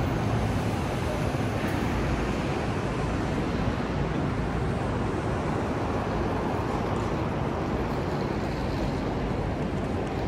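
Steady low rumbling outdoor background noise, with no distinct events standing out.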